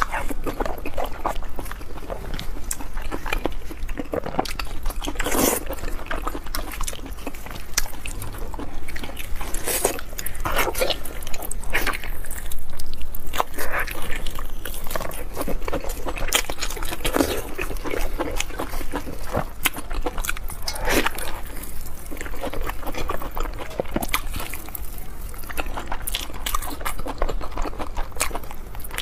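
Close-miked wet eating sounds: sucking, chewing and lip-smacking on spicy braised pig stomach and large intestine, made of many irregular moist clicks and smacks.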